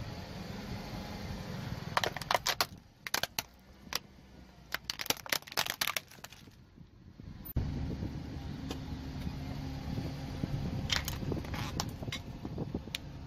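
Green plastic toy car cracking and snapping as a car tyre rolls over it, a run of sharp plastic cracks with a few more near the end, over the car's low rumble.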